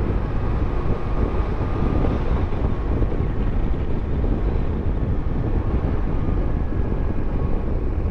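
A BMW F700GS motorcycle riding at road speed: its parallel-twin engine running steadily under rushing wind noise.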